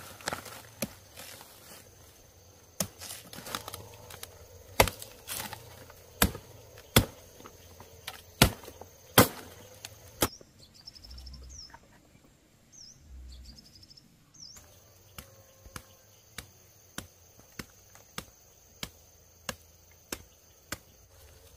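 Chopping with a blade: loud, sharp strikes at uneven intervals for about ten seconds. After a pause of a few seconds, a steadier run of lighter chops follows, about every two-thirds of a second.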